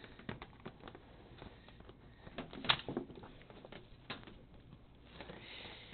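Faint, irregular clicks and knocks of hand handling among the pinsetter's parts and tools, the sharpest about two and three-quarter seconds in, with a brief hiss near the end.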